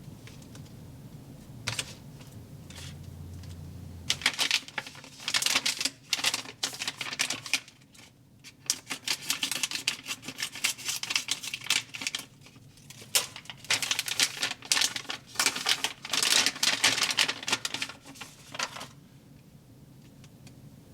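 Rapid, irregular crackling and clicking in bursts, from hands working the slime-food toy set: starting about four seconds in, pausing briefly around the middle, and stopping near the end.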